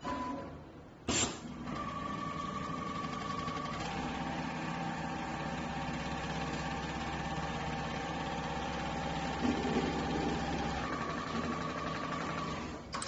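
JUITA automatic template sewing machine running: a sharp click about a second in, then the steady fast run of the needle with a whine from the drive that shifts pitch about four seconds in and again near eleven seconds, and another click near the end.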